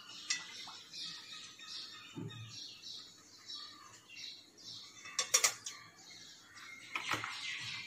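Cooking oil poured from a plastic bottle into a hot kadai, with a few sharp knocks about five seconds in and another near the end. Faint high chirping runs through the first half.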